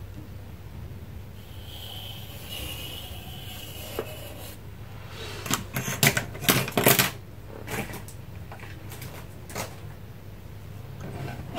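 Craft tools and paper being handled on a tabletop: a short squeaky scrape about two seconds in, then a cluster of sharp clicks and taps around the middle and a few single taps later, over a steady low hum.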